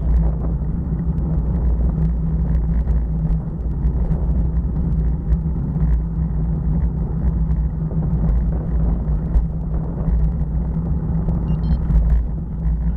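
Steady low rumble of wind and road noise on a bicycle-mounted camera riding over rough, cracked pavement, with scattered small clicks and rattles from the bumps.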